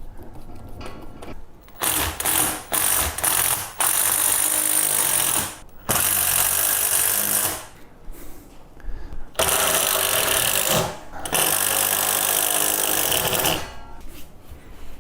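Power drill running in five bursts of one to two seconds each, with short pauses between.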